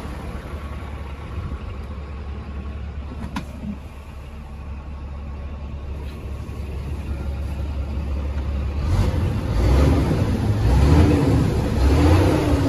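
2008 Scania P380 truck's diesel engine idling steadily, heard from inside the cab, then revved in several short blips from about nine seconds in.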